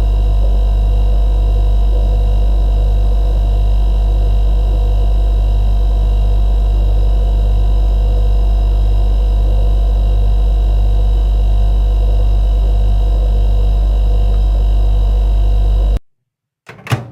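Electric kitchen appliance humming loudly and steadily, a deep mains hum with a few fixed higher tones over it, then cutting off abruptly about a second before the end.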